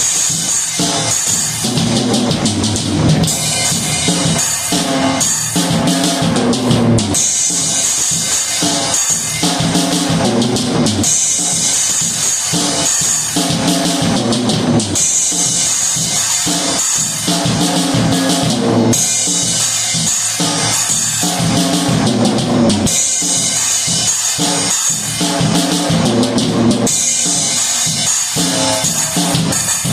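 Drum kit playing one groove over and over, bass drum and snare hits under a bright cymbal wash that drops out briefly about every four seconds.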